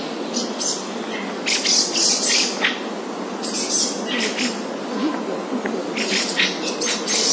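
Small birds chirping in irregular clusters of short high calls, a few seconds apart, over a steady background noise.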